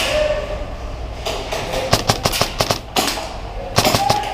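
Airsoft electric guns firing: a rapid burst of sharp shots about two seconds in, a single shot near three seconds, and another short burst near the end.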